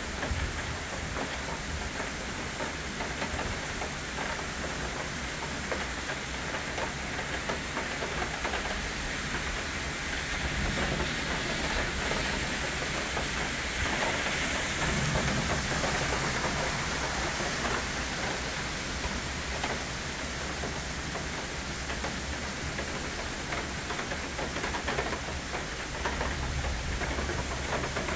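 Steady rain from a summer thunderstorm falling on trees and foliage, swelling a little louder for several seconds midway.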